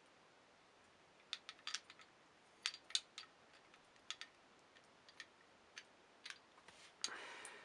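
Scattered light clicks and taps from handling a small wooden toy engine, with a soft rustle near the end.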